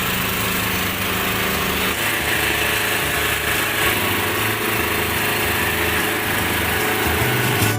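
Small engine running steadily under a constant hiss, with its low hum wavering in pitch.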